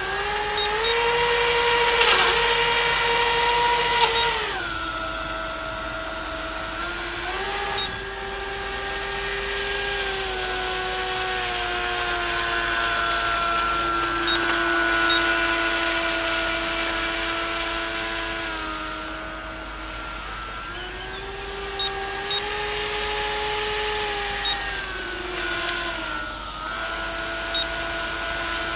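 Twin electric motors and propellers of an RC model flying boat taxiing on the water. They make a steady whine whose pitch steps down and up several times as the throttle changes: it drops about four seconds in, rises again, sinks slowly, then rises and falls once more near the end.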